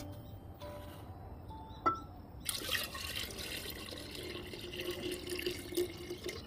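Soy sauce poured from a glass bowl into an earthenware onggi crock, a steady splashing stream with a low steady note from the jar, starting about two and a half seconds in. A single light knock comes just before the pour starts.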